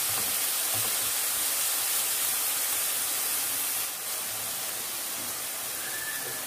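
Coconut and jaggery filling sizzling in a pan as the jaggery melts, a steady hiss that drops a little about four seconds in.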